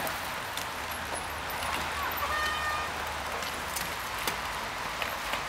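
Mountain bikes riding over a dirt trail, with tyre noise on soil and scattered clicks and rattles from the bikes. A brief high-pitched squeal sounds about two and a half seconds in.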